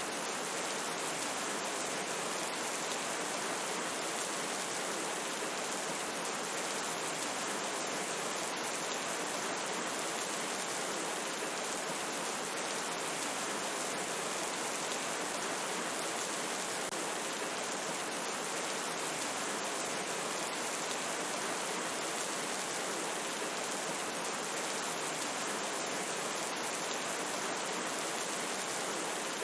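Steady, even rain falling, with faint scattered drop ticks high up.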